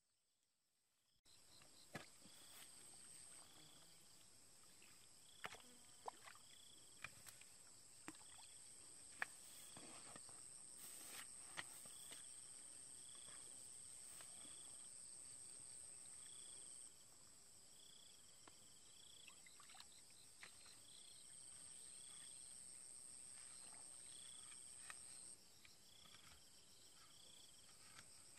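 Insects chirping: a steady high whine with a short chirp repeating about once a second, starting about a second in. Scattered sharp knocks of a hoe blade chopping into muddy ground.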